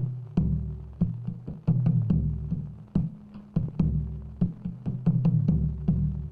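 Percussion-led music: sharp drum strikes, a few a second in an uneven rhythm, each trailed by deep low notes.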